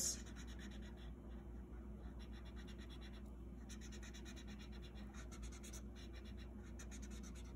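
A felt-tip marker scribbling on paper in quick, faint back-and-forth strokes, colouring in a small area.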